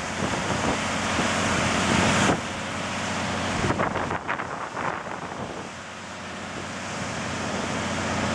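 Wind buffeting the microphone in gusts over a steady low machinery hum, with the wind dropping suddenly about two seconds in. A few light knocks come about four seconds in.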